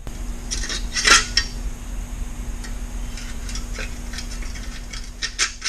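Metal parts and hand tools clinking and clattering as they are handled, with a cluster of louder clinks about a second in and again near the end.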